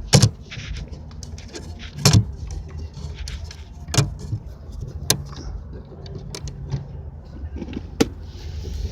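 Rubber boots and gear being pulled out of a boat's storage compartment: a handful of sharp knocks and clunks, the loudest near the start and about two seconds in, over a low steady rumble.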